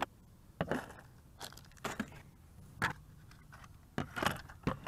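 Unboxing handling sounds: a cardboard box and small plastic drone parts being lifted out and set down, giving scattered rustles, scrapes and light clicks, with a few stronger knocks about two, three and four seconds in.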